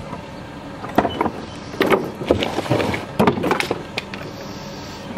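Scattered knocks and clatters of roadside scrap being handled and picked through, several in quick succession between about one and four seconds in.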